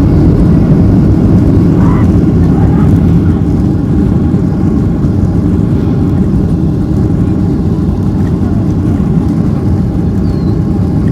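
Loud, steady rumble inside the cabin of a Boeing 737-300 rolling on the ground after landing, its CFM56 turbofans and the airframe noise heard through the fuselage; it eases a little about three and a half seconds in.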